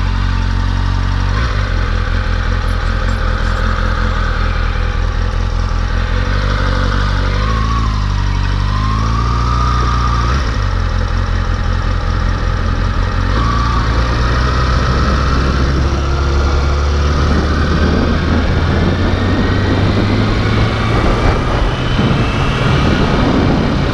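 Kawasaki Ninja 636 (ZX-6R) inline-four motorcycle engine running at a steady idle. Its pitch dips and climbs again about a third of the way in, and the sound grows rougher and noisier in the last third.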